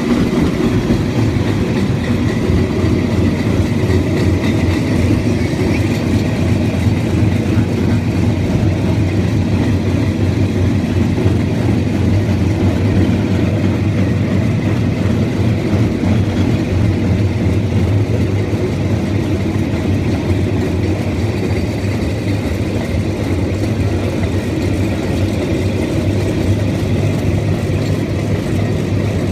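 Steady rumble of rail bikes' steel wheels rolling along a railway track.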